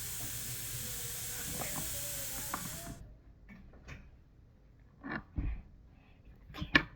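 Aerosol can of foam spraying in one steady hiss that cuts off abruptly about three seconds in, followed by faint handling clicks and a sharper knock near the end.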